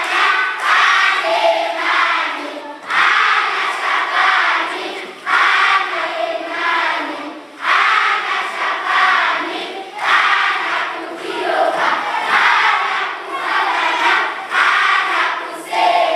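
A large group of children singing together in loud, chant-like unison phrases, each lasting a couple of seconds with a short break before the next, in a steady repeating pattern.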